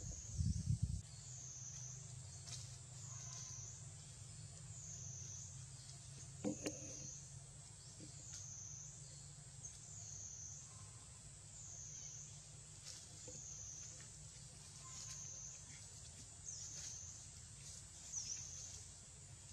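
High, steady insect drone, likely cicadas, swelling and dipping about once a second over a low rumble. A short knock comes near the start and another brief sound about six and a half seconds in.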